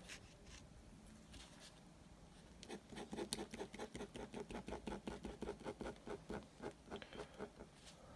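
Ballpoint pen scratching on paper in rapid, short, repeated strokes, sketching hair-like eyebrow marks. It is faint at first and starts in earnest about two and a half seconds in.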